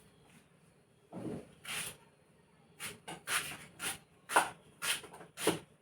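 A spoon scraping and turning smoked chicken pieces in a cooking pot. It makes a series of short, irregular scrapes, starting about a second in.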